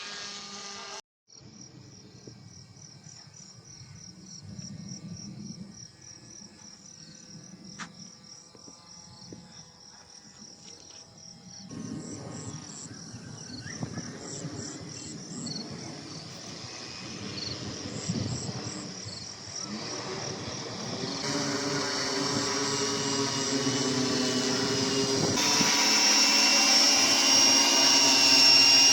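Whine of the electric motors and propellers of a XUWING DB2200 VTOL model plane, with four lift rotors and a pusher prop, heard in flight. The high buzzing hum grows louder toward the end and is broken by several abrupt cuts between clips.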